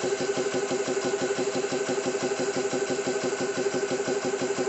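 Xisico CS3 4500 PSI portable high-pressure air compressor running steadily, its pump pulsing rapidly and evenly over a steady high whine from its cooling fans. It measures about 83–85 decibels close to the unit in a hard-surfaced, echoey room.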